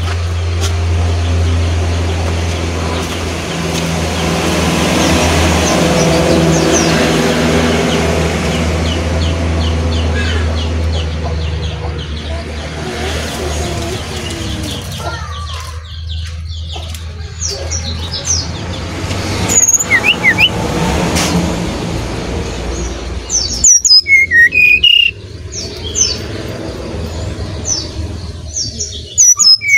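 Low steady hum of a motor vehicle that fades out about halfway. After that a brown-chested jungle flycatcher sings short, clear whistled notes in loud clusters near the end.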